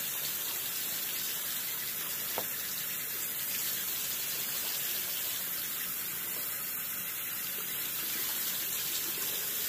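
Water running steadily from a bathroom tap into a sink.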